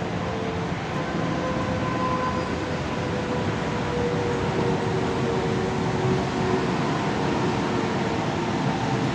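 Steady rumble of a running motor vehicle, engine and road noise, with a faint hum whose pitch drifts slightly.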